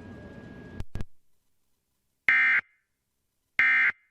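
Emergency Alert System end-of-message (EOM) data bursts: two short, identical digital bursts about 1.3 seconds apart, the first about two seconds in, signalling that the alert has ended. Before them there is faint background hiss with a couple of clicks about a second in, then silence.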